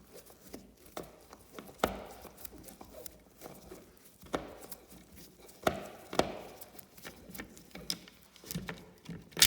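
Scattered clicks and knocks of a screwdriver and a plastic thermostat being handled while the last screw holding it to the wall is taken out, with the sharpest knock near the end.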